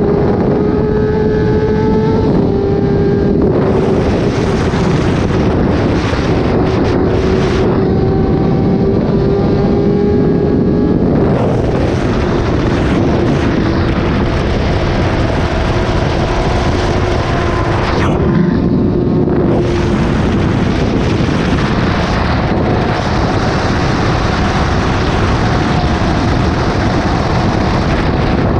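Kawasaki ZX-10R inline-four superbike with an SC-Project exhaust running at a steady cruise, its engine note drifting slightly up and down in pitch, with wind rushing over the microphone.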